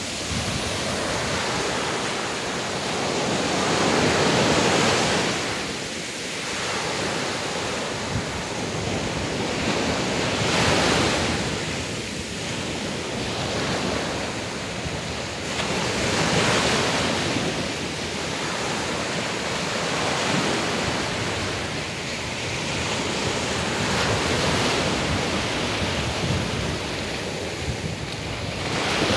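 Small sea waves breaking on a sandy shore and washing up the beach in a steady surf, swelling roughly every five to six seconds.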